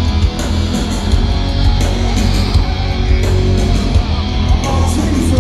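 Heavy metal band playing live at full volume: distorted electric guitars over drums and crashing cymbals, with a heavy low end. Recorded through a phone's microphone in the crowd, so the sound is muddy and overdriven.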